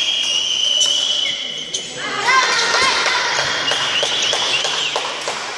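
Badminton shoes squeaking on a wooden sports-hall floor during a rally: a long high squeak over the first two seconds, then a run of short chirping squeaks. Sharp clicks of rackets striking the shuttlecock come in between.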